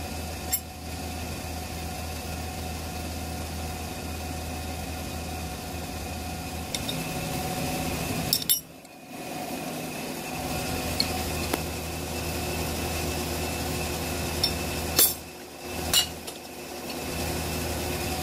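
Steady shop machinery hum with a few short metallic clinks of a steel stop and tools being set on a milling machine table. The hum cuts out briefly twice.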